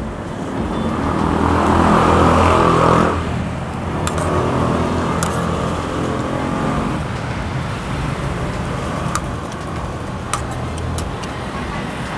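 Road traffic passing close by: one vehicle swells up and goes by in the first three seconds, and another passes soon after, over a steady traffic hum. A few light clicks come in the second half.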